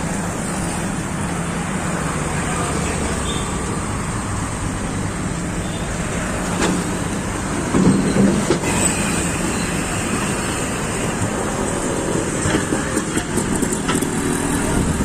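Steady street traffic noise with a motor vehicle engine running, and a brief louder passage about eight seconds in.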